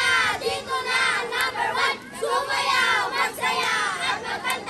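A patrol of Boy Scouts chanting their patrol yell in unison, in loud, rhythmic shouted phrases with a short break about two seconds in.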